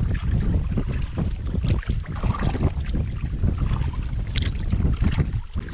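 Wind buffeting the microphone in a heavy, fluttering rumble, over water splashing and lapping against the hull of a small pack canoe being paddled.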